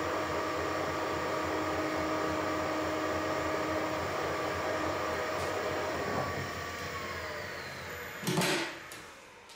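Harrison lathe's VFD-driven electric motor and drive train running with a steady whine, the noise under investigation for an irritating drive-train vibration. About six seconds in, the whine falls in pitch as the motor slows, and a loud short clunk comes near the end.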